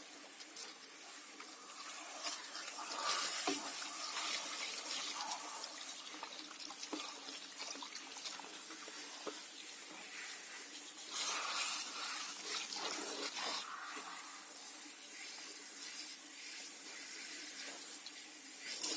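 Running water rinsing a dog in a grooming bath, a steady rush that grows louder about three seconds in and again around eleven seconds in.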